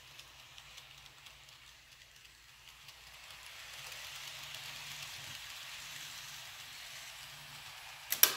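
N scale model passenger train running on Kato Unitrack: a faint steady whirr and hiss of motor and wheels, louder about four to five seconds in as the train passes close, with faint light ticking. A single sharp click near the end.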